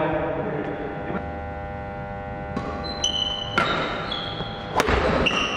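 Indoor badminton court sounds: a steady hum, then short high sneaker squeaks on the wooden floor from about three seconds in, and one sharp smack near the end.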